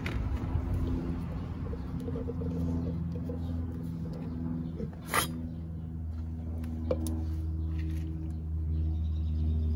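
A steady low mechanical hum made of several held tones, growing slightly louder in the second half, with a sharp click about five seconds in and a lighter one near seven seconds.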